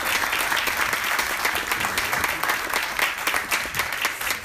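Theatre audience applauding, a dense steady clapping that fades out at the very end.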